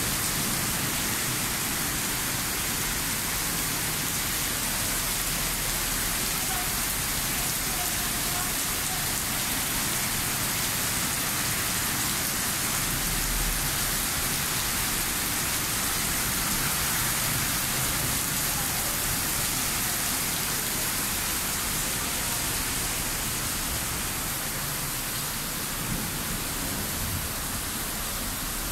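Heavy rain pouring down onto a paved street in a downpour, a steady, even rush of water.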